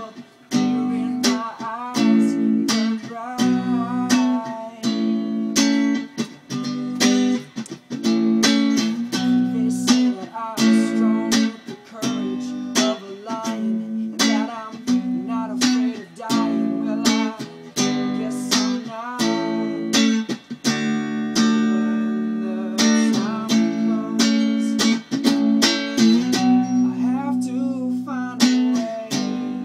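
Music: a Stratocaster-style electric guitar playing a lead melody with bent notes, over steady low chords pulsing about once a second. A long note with vibrato is held near the end.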